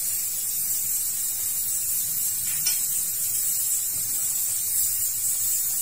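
Stovetop pressure cooker on a gas burner letting off steam in a steady, high hiss.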